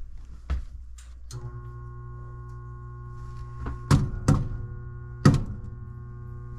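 A furnace draft inducer motor humming steadily without starting, switching on suddenly about a second in; this is the sign of a stalled motor. Several knocks and clunks, likely panel or tool handling, are heard over it, the loudest two in the second half.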